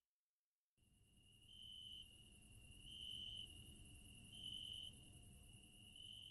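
Cricket chirping: a continuous high-pitched trill that swells louder about every second and a half. It starts after a brief silence, about a second in.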